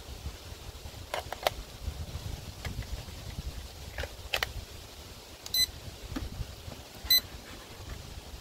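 Plastic clicks and snaps as AA batteries are pressed into an RC transmitter's battery compartment and the cover is closed, followed by two short, high electronic beeps about a second and a half apart as the radio gear powers on.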